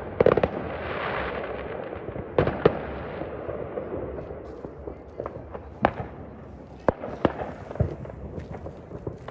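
Fireworks and firecrackers going off: irregular sharp bangs and cracks, roughly one a second, over a rolling rumble of echo that swells after the first bangs and slowly dies down.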